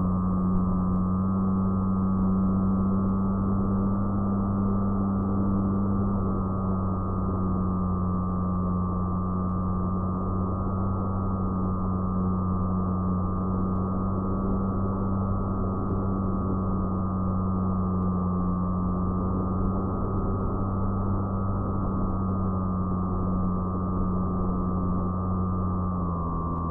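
FPV fixed-wing plane's electric motor and propeller, recorded on board and running steadily with a constant hum and whine. Its pitch dips slightly about six seconds in and drops near the end as the throttle eases.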